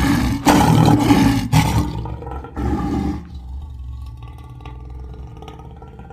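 Lion roaring: loud, rough roars over the first three seconds, then a quieter rumble that trails on until it cuts off at the end.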